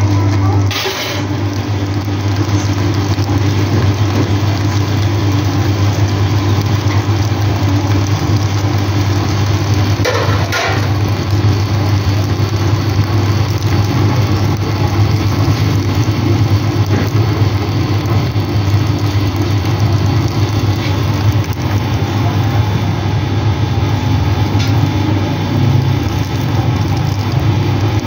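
A steady low motor hum with a constant rushing noise over it, unchanging throughout, broken by two brief clatters about a second in and about ten seconds in.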